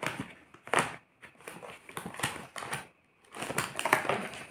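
Rummaging in a clear plastic storage box of art supplies: irregular plastic clicks, knocks and rustles as items are moved about and the box is shifted.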